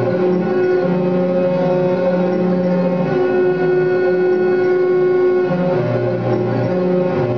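Live drone music: layered sustained tones from a performer's floor of effects pedals, with a lower note that shifts every couple of seconds beneath a steady held tone.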